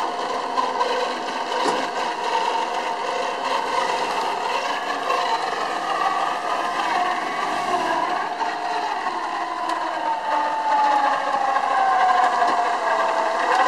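Electric winch on a Jeep's front bumper whirring under load as it reels in its cable and pulls the half-submerged Jeep out of the water. The whine wavers and sinks in pitch near the end.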